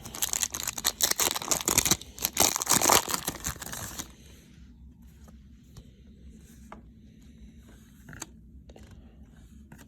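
A pack of trading cards being torn open, the wrapper tearing and crinkling for about four seconds. After that come quieter, scattered light clicks as the cards are handled.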